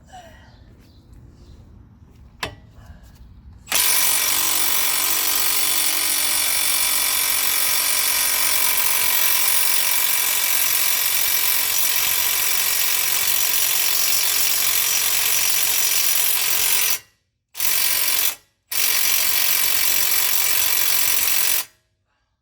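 Impact wrench hammering on a 19 mm caliper bracket bolt for a long burst, with two brief pauses near the end, without breaking the seized bolt loose.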